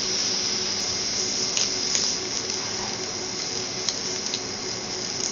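Shrimp and scallops sizzling on a teppanyaki steel griddle, a steady hiss, with a few light clicks of a metal spatula and fork against the griddle.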